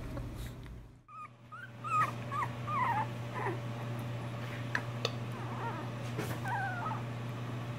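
Puppies play-fighting, one giving a quick run of short, high whimpers and yips, then another whine near the end, over a steady low hum.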